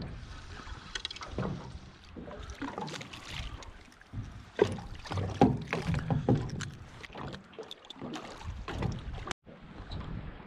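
Irregular knocks, clicks and rustling of a rod and spinning reel being handled in a small boat, over water lapping at the hull; the louder knocks come around the middle. The sound cuts out briefly near the end.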